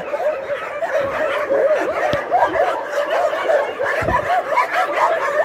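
Many shelter dogs barking and yelping at once from their enclosures, a dense run of short overlapping calls.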